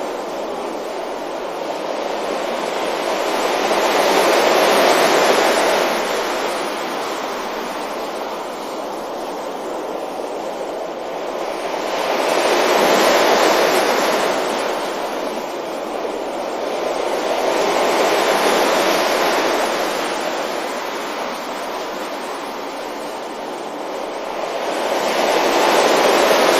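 Sea waves breaking gently on a beach: a steady wash of surf that swells and fades four times, about every six to seven seconds.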